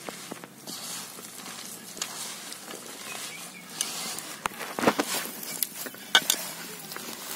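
Hand-mixing pakora dough in a steel bowl: fingers squeezing and tossing drumstick leaves, sliced onion and spiced flour dough, a steady rustling stir with scattered clicks, and two louder knocks against the bowl a little past the middle.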